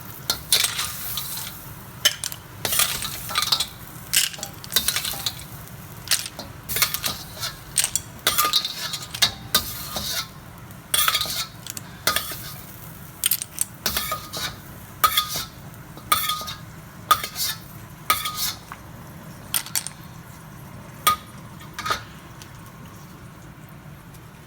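Clams in their shells in garlic butter sauce being scooped from a hot pan with a metal utensil: repeated scrapes, knocks and clinks of metal on pan, shell and porcelain bowl, some of them ringing briefly, over a light sizzle. The knocks thin out over the last few seconds.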